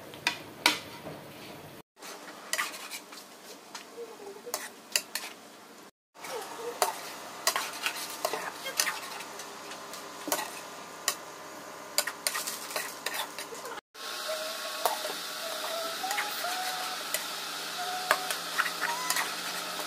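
Metal spatula stirring and scraping chicken wings in a simmering sauce in a nonstick frying pan, with many clicks and knocks of the utensil against the pan over a steady sizzle. The sizzle grows louder in the last several seconds.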